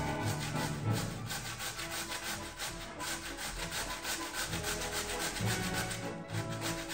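Vegetables being grated on a grater: rapid, even scraping strokes, several a second, over soft background music.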